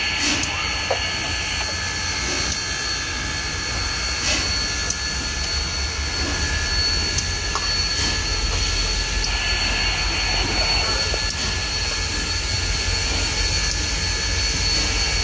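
Union Pacific Big Boy 4014, a 4-8-8-4 articulated steam locomotive, working slowly past while pushing a stalled freight train up the grade. It makes a deep steady rumble with a thin steady high whine over it, growing slightly louder in the second half.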